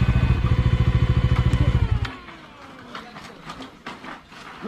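Motorcycle engine idling with a steady low pulse, then switched off about two seconds in; scattered light clicks and knocks follow.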